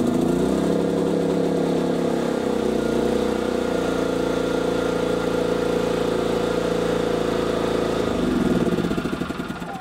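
Hyundai HY3200SEI inverter generator's 210cc four-stroke petrol engine running steadily after a pull start. Near the end its sound changes and begins to die away as it is switched off.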